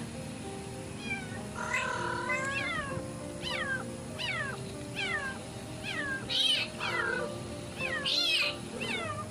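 Kitten trapped inside an outdoor air-conditioner unit meowing over and over, short high calls that fall in pitch, about two a second, starting about a second in, with background music underneath.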